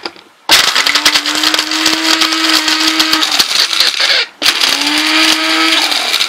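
Small electric mixer grinding hard tonka beans to powder, run in two bursts: the motor spins up with a rising hum over a dense rattle of bean pieces against the blade. It runs about three seconds, stops briefly around four seconds in, then runs again until near the end.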